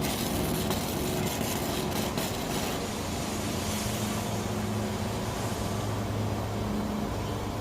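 Electric arc welding on an M30 steel anchor bolt: a steady crackling hiss from the arc, with a low hum underneath.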